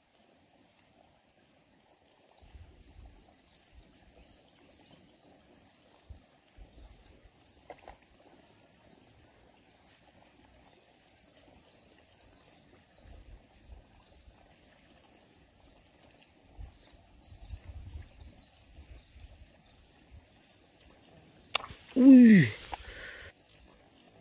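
Quiet paddy-field ambience with a steady high insect buzz and faint chirps; about two seconds before the end, a sudden loud burst and a man's short startled cry falling in pitch as a large rice-field eel lunges out at the frog bait.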